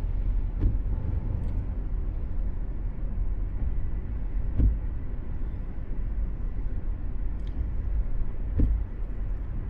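Steady low rumble of a vehicle on the move, with a short knock three times, about four seconds apart.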